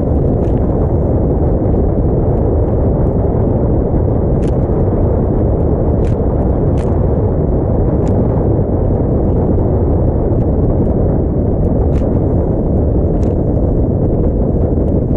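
Heavy wind buffeting on the microphone of a camera on the bow of an aluminium motorboat running across choppy water, a steady loud rush with a few sharp ticks scattered through it.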